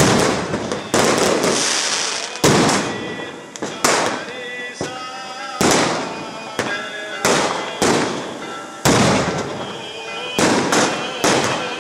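Fireworks and firecrackers going off in an irregular string of sharp, loud bangs, roughly one a second, each dying away over a fraction of a second.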